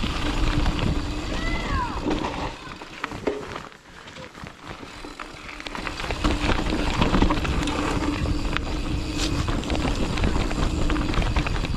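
Mountain bike riding down a rough dirt trail: tyres rattling and clattering over the ground with wind rumbling on the microphone, and a steady buzz from the rear freehub while coasting. A short shout comes about a second and a half in, and the ride goes quieter for a couple of seconds around the middle.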